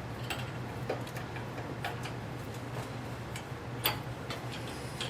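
A few scattered light clicks and taps at irregular intervals, over a steady low hum.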